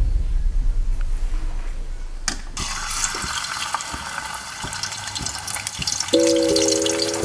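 Water running from a tap into a sink, a steady splashing hiss that sets in a couple of seconds in. Background music comes in near the end.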